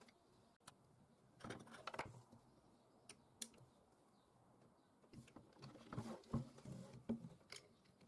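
Faint metallic clicks and clinks of an open-end spanner on a hex bolt and of steel parts being handled on an angle grinder. They come in two short clusters, about a second and a half in and again from about five seconds in.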